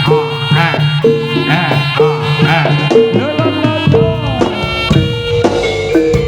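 Javanese traditional gamelan music for a Senterewe dance, played loud: drumming over a note struck about once a second, with steady low notes beneath. The pattern shifts about four seconds in.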